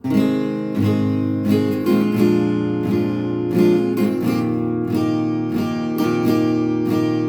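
Acoustic guitar strummed in a steady rhythm, about two strums a second, playing the instrumental intro of a slow country song. It starts suddenly out of silence.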